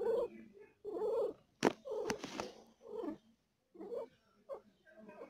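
Domestic cat purring in labour, the purr swelling and fading in pulses about once a second with her breathing. Two sharp clicks sound near the middle.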